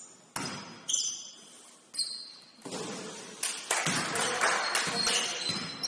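Basketball bouncing on a gym floor during play, with short high squeaks of sneakers on the court and the echo of a large hall. The sound turns busier and louder a little past halfway.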